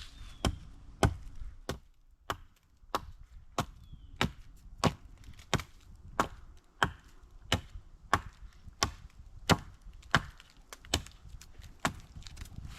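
A steady run of sharp blows on wood, about three every two seconds, keeping an even rhythm throughout.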